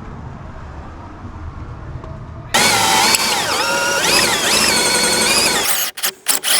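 A cordless power drill run for about three seconds, its motor whine rising and falling in pitch as the trigger is worked, then stopping suddenly, followed by a few sharp clicks.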